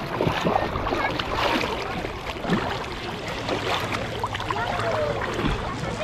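Sea water sloshing and lapping right at the camera as it is carried through shallow water and lowered to the surface, with small splashes and drips.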